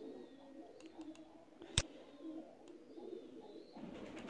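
One sharp computer mouse click a little under two seconds in, over faint low bird cooing in the background.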